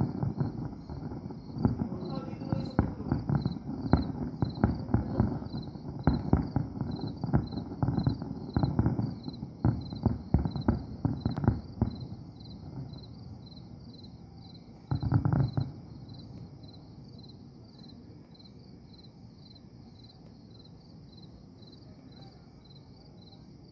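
Fireworks finale: a rapid barrage of bangs and crackling pops for about the first twelve seconds, one heavier boom about fifteen seconds in, then it stops. Crickets chirp steadily throughout, a few chirps a second.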